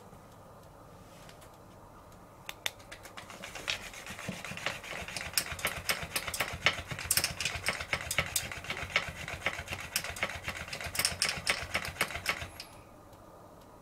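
Electric flopping fish cat toy running: a motor whir with rapid, irregular taps and slaps as the fish flaps against the floor, growing louder, for about ten seconds before it stops abruptly.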